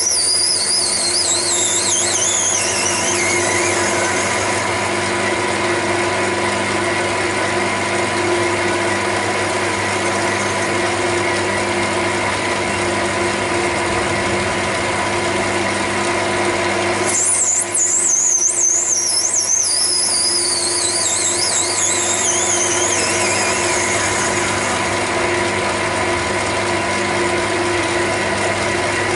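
Metal lathe running with a steady whine while the cutting tool faces the end of a spinning acetal plug. A high squeal from the cut slides down in pitch over several seconds, fading out about four seconds in. A second falling squeal starts about 17 seconds in and fades out several seconds later.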